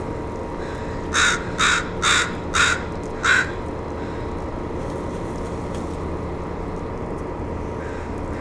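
Crow cawing five times in quick succession, over a steady low hum.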